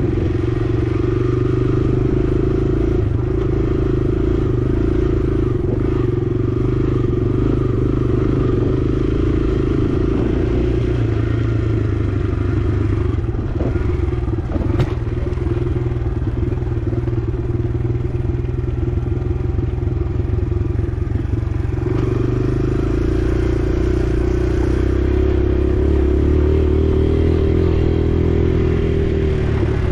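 Kawasaki KLX140R L dirt bike's single-cylinder four-stroke engine running steadily while being ridden along a dirt trail, its note shifting and growing fuller about two-thirds of the way through. A single sharp click sounds about halfway through.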